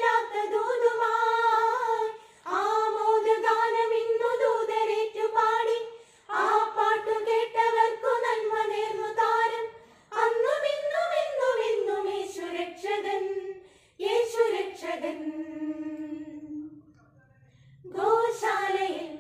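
A group of women singing a Christmas carol together, in phrases a few seconds long with short breaths between them. Later, a long held note fades away, and after a pause the next phrase begins near the end.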